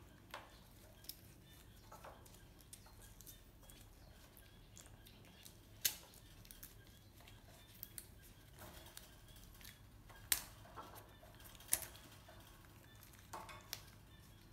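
Scattered sharp clicks and light taps, a few louder ones about six, ten and twelve seconds in, from a baby macaque handling and eating lotus seeds in a wire cage.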